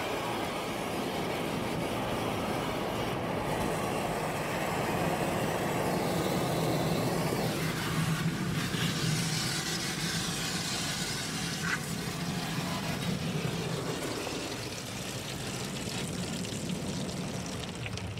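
Ryko automatic car wash heard from inside the car: a steady motor hum under dense scrubbing as the spinning foam brushes work the body. About 8 s in this gives way to a brighter hiss of water spraying onto the car.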